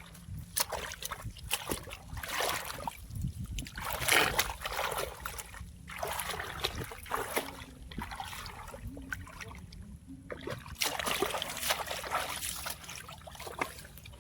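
Water splashing and sloshing in irregular bursts in a shallow, flooded rice field as fish are caught by hand.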